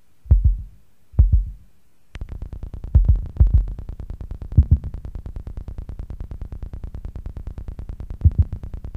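Noise music played from a cassette tape: two deep thumps, then from about two seconds in a fast, even stream of clicks over a low drone, broken by a few heavy low booms.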